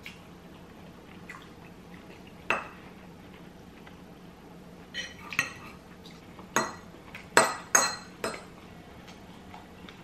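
Metal fork clinking against a white ceramic bowl while mixing couscous: one sharp clink about two and a half seconds in, then a quicker run of six clinks over the second half, two of them louder and close together.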